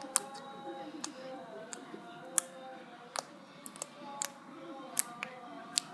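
Jelly slime being squeezed and played with, giving sharp popping clicks at irregular intervals, about nine in all, over background music.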